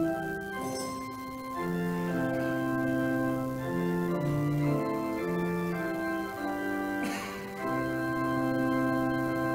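Organ playing slow, sustained chords, each chord held for about a second or more before moving to the next.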